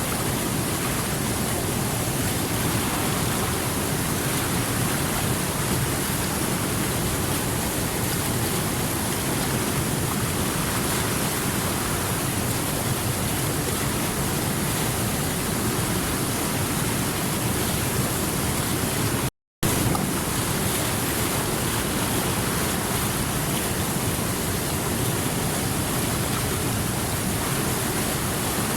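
Small creek flowing over stones: a steady, even rush of water. A split-second gap of silence breaks it about two-thirds of the way through.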